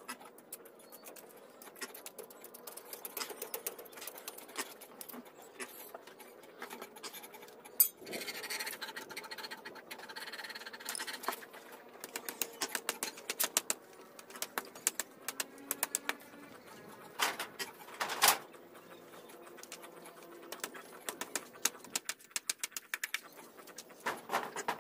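Machete striking bamboo in a string of sharp knocks, with a few seconds of rasping scraping about a third of the way in and two louder strikes past the middle.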